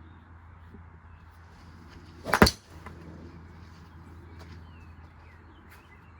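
A washing machine being wrecked with golf balls inside gives one loud, sharp bang, a quick double knock, about two and a half seconds in, over its steady low hum. Faint bird chirps sound now and then.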